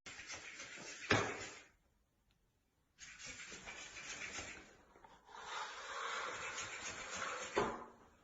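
Two sharp knocks, one about a second in and one near the end, with rustling between them and a brief dropout to silence around two seconds in.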